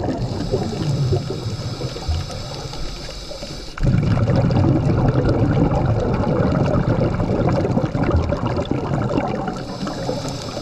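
Scuba diver breathing through a regulator underwater. A steady hiss of inhaling gives way, about four seconds in, to a louder rush of burbling exhaled bubbles lasting several seconds. The hiss returns near the end.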